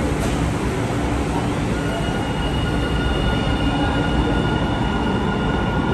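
Light rail train moving through an underground station: a steady rumble of wheels on rail, joined about two seconds in by a steady high-pitched whine.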